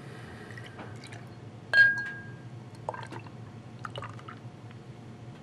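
Beer being poured from a bottle into a glass, with small clinks and trickling liquid. About two seconds in comes one sharp glass clink that rings briefly, the loudest sound.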